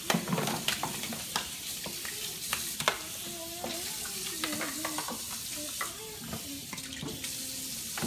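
Kitchen faucet running into a stainless-steel sink while plastic bowls and plates are rinsed under it, with frequent clattering knocks as the dishes are handled against the sink.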